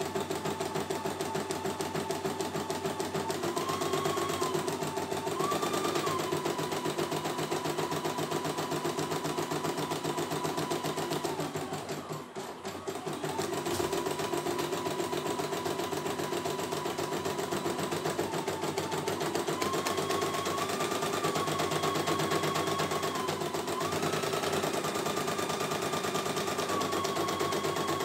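CNY E900 computerised embroidery machine stitching a design: a rapid, even run of needle strokes, over a whine that steps up and down in pitch. There is a brief lull about twelve seconds in.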